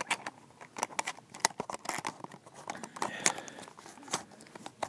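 Irregular light clicks and crinkles of a diecast car's plastic blister packaging being handled and pried at by hand.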